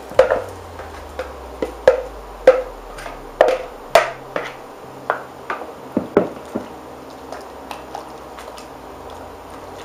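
Metal fork clinking and scraping against a ceramic bowl as shredded chicken is pushed out into a slow cooker: a run of irregular sharp clinks, about a dozen over the first six seconds. Fainter knocks of a utensil stirring in the pot follow.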